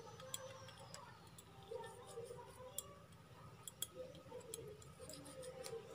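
Faint, irregular clicks and light metal taps from handling the parts of a disassembled car AC compressor.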